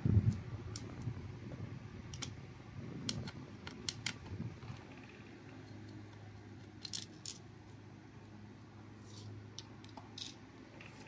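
Scattered light clicks and taps from hands handling the internals of an opened laptop near its battery, over a low steady hum.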